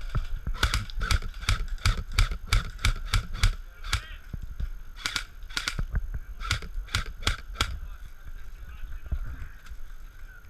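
Airsoft gun firing single shots in quick succession, about three a second for roughly three seconds, then shorter scattered groups of shots that stop after about seven and a half seconds.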